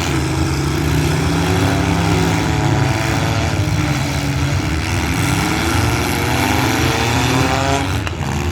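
Several street stock demolition derby cars' V8 engines running together, with one engine revving up in a long rising pitch through the second half.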